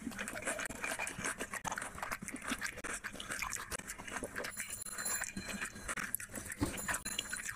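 Wet squishing and crackling of rice and curry being mixed and kneaded by hand on a plate, with close-up chewing and mouth sounds: a dense run of small clicks.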